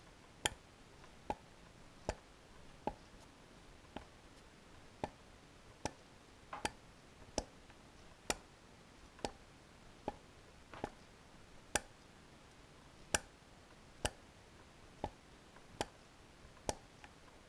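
Sharp metallic clicks about once a second as a finger works a valve in the cylinder head and it taps against its seat.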